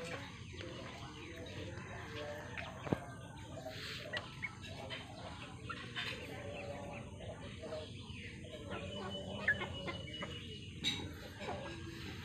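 A flock of chickens clucking as they forage, in short scattered calls, with a few sharp clicks.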